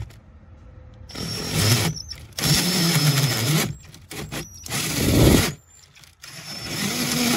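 Cordless drill driving a hole saw into a boat's dashboard panel in about four short bursts, the motor speed rising and falling within each as the saw bites.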